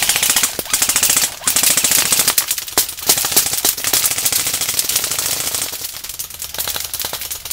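Airsoft electric guns firing on full auto: a fast, continuous chatter of shots in long bursts with a few brief pauses.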